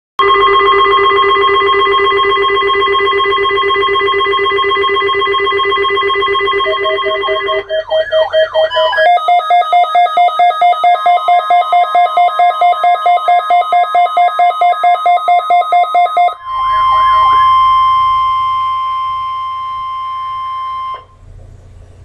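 RadioShack NOAA weather radio sounding its emergency alert for a test tornado warning: a loud steady electronic alarm tone, a few warbling glides, then rapid beeping about six times a second, then a single steady warning tone near 1 kHz that cuts off near the end.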